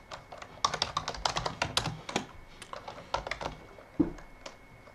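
Typing on a computer keyboard: a quick run of keystrokes that thins out after about two seconds into a few scattered key presses.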